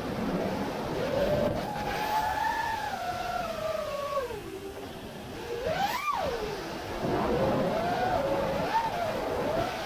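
5-inch FPV freestyle quadcopter's brushless motors whining, the pitch sliding up and down with the throttle and jumping to a sharp peak and back about six seconds in, over wind rush, as heard from the camera on the drone itself.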